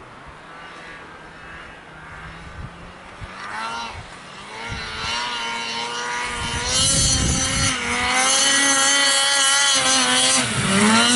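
Snowmobile engine running at high revs as the sled plows through deep powder, faint at first and growing louder as it comes closer. Its note wavers up and down with the throttle, then dips and rises quickly near the end.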